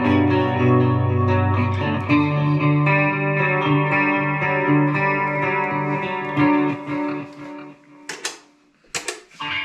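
Electric guitar (a Fender Player Stratocaster) played through a Fender Mustang GTX100 modelling amp on an effects-laden preset. Sustained, ringing notes and chords fade out about eight seconds in, followed by a couple of short clicks.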